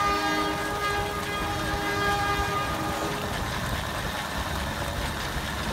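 A steam whistle blowing one steady blast of about three seconds, two notes sounding together, then stopping. Steady background noise runs under it.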